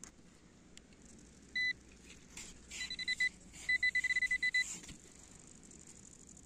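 Handheld metal-detecting pinpointer beeping in beach sand. One short beep comes about a second and a half in, then two quick runs of rapid beeps around three and four seconds in: the fast pulsing that signals a metal target close to the probe tip.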